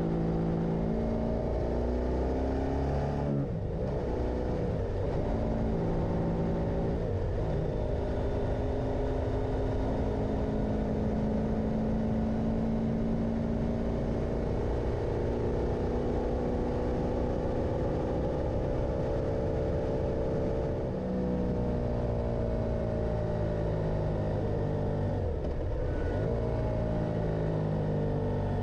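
Motorcycle engine running under way, its note rising and falling with speed, with a brief break for a gear change about three seconds in and again near the end.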